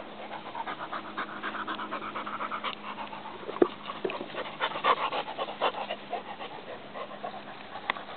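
English Springer Spaniel panting close to the microphone, a quick run of short breaths, with one sharp click about three and a half seconds in.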